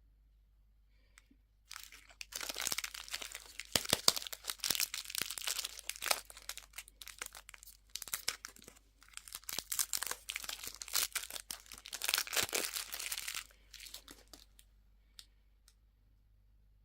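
A candy wrapper being torn open and crinkled by hand, in dense crackly spells from about two seconds in to about fourteen seconds, easing briefly in the middle.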